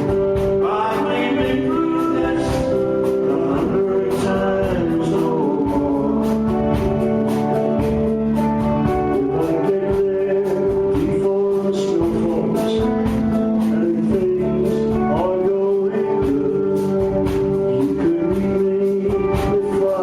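Live band performing a song: sung lead and harmony vocals over electric guitars and a steady tambourine and drum beat.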